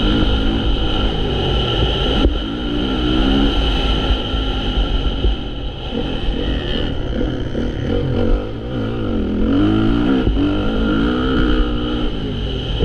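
Honda CRF450 motocross bike's four-stroke single-cylinder engine being ridden hard, its revs rising and falling again and again.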